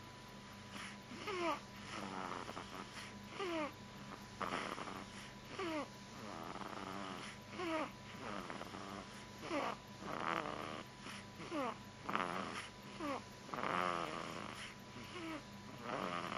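A young girl snoring in her sleep. About every two seconds there is a breath with a thin whistle that falls steadily in pitch, followed by a rougher, noisier breath.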